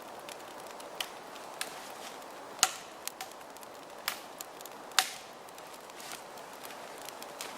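Dry wood cracking and snapping: about six sharp snaps over a steady low hiss, the two loudest about two and a half seconds apart.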